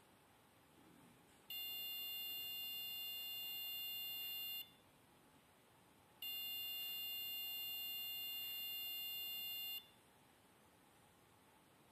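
Small Arduino-driven electronic buzzer sounding a steady, unchanging high-pitched beep twice, each about three seconds long, switched on and off by turning a potentiometer.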